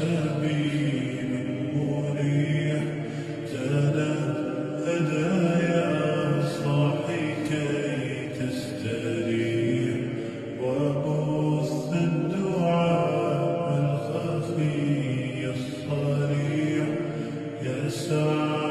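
Music track of a voice chanting in long held notes.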